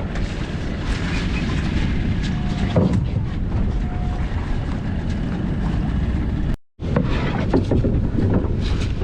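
Steady wind buffeting the microphone over the noise of the sea and the boat, on board a small fishing boat. The sound cuts out completely for a moment about two-thirds of the way through.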